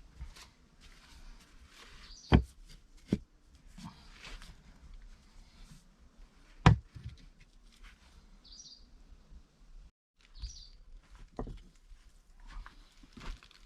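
Stones being set down on stones, a few sharp separate knocks spread over several seconds as a stone stove is laid up. A couple of short bird chirps in the background.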